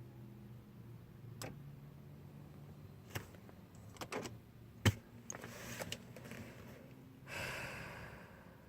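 Scattered clicks and knocks inside a car over a steady low hum, the loudest knock about five seconds in, followed by a short breathy rush near the end.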